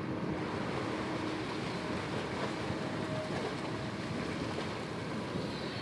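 Excavator's diesel engine running steadily while it dredges, with water splashing and pouring off the bucket as it lifts a load of wet mud.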